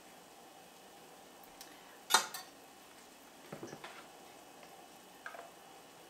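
A few light clinks and knocks of a measuring cup against a mixing bowl and a muffin tin as beaten egg is scooped and poured, the loudest a little over two seconds in.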